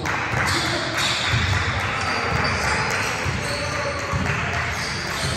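Basketball bouncing on a gym court during a game, repeated low thuds under a steady wash of crowd and player voices.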